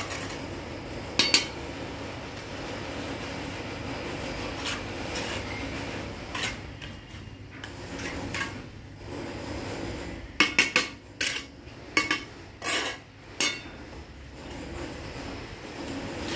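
Bricklaying: a steel trowel scraping mortar and clinking against bricks, with bricks knocking as they are handled and set. Sharp clinks and knocks, one about a second in and a quick run of them from about ten to thirteen seconds in.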